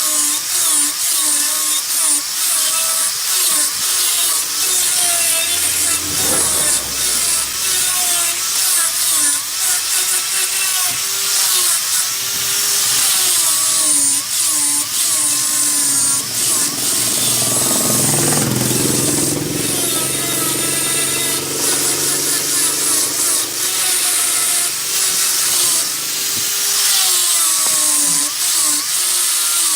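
Wood lathe running while a turning tool cuts into spinning red wood, a steady scraping hiss with squealing tones that waver up and down as the tool is worked along the piece.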